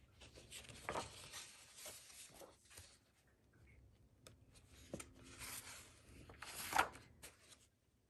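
Pages of a paperback colouring book being turned by hand: faint paper rustling and swishing as the hand slides over the pages, the loudest swish near the end.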